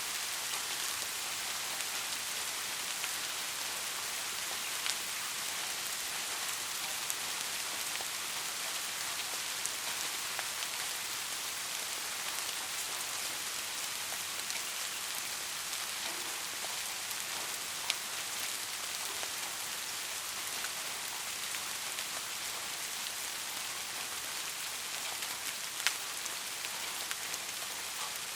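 Soft, steady rain falling on a surface: an even hiss with scattered single drops ticking through it.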